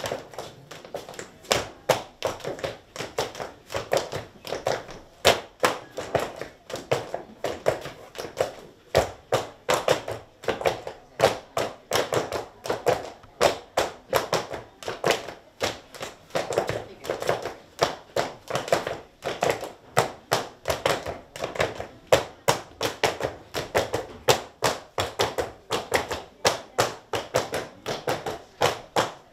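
Folk dancers' shoes stepping and stamping on a tiled floor in a quick, even rhythm during a circle dance, with no music.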